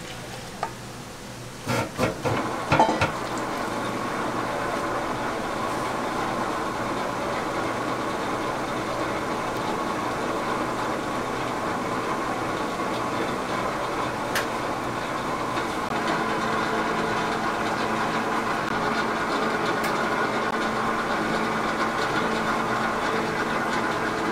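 Large commercial stand mixer running, beating cake batter in a steel bowl: a steady motor hum and whir, with a few knocks about two seconds in and a slightly louder run from about sixteen seconds on.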